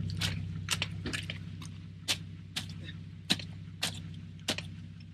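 Off-road Jeep's engine idling steadily, with about ten sharp clicks and clinks spaced roughly half a second apart.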